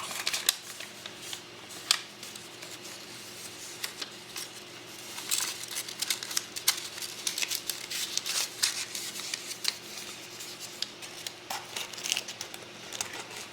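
Paper instruction pamphlet being refolded and handled, with rustling and scattered small clicks and taps, busiest in the middle.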